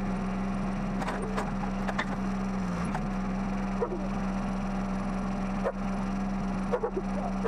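Cub Cadet lawn tractor engine running at a steady speed just after starting, an even hum with a few light clicks and knocks over it.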